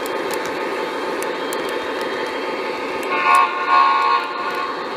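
Lionel Conrail SD80 O-gauge model diesel locomotive running on track with a steady hum and light clicks. About three seconds in, its onboard sound system sounds the diesel horn in two short blasts.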